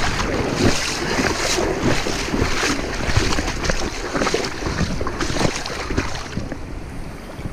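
Mountain river water rushing, with wind buffeting the microphone in irregular gusts.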